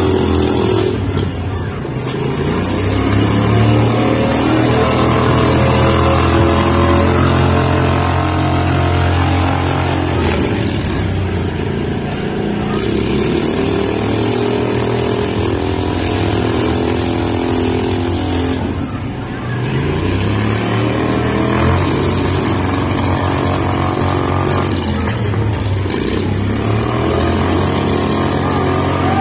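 Several small riding lawn-tractor engines running together and revving, their pitches rising and falling.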